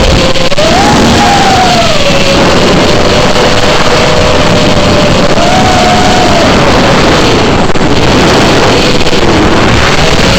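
FPV quadcopter's motors whining, the pitch rising and falling with the throttle, over heavy wind and propeller noise. The whine climbs about a second in, climbs again around the middle, and dips near the end.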